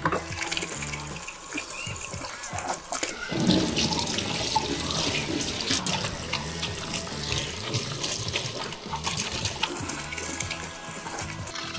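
Water running from a tap into a sink as a pet bird's plastic food and water dishes are rinsed under it.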